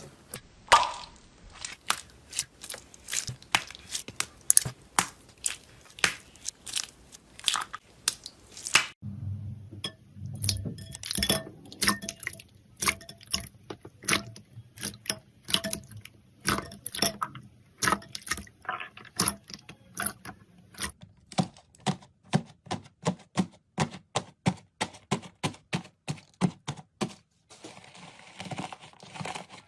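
Slime being pressed and poked, making a string of sharp pops and crackles about one or two a second. The pops quicken to a fast run near the end.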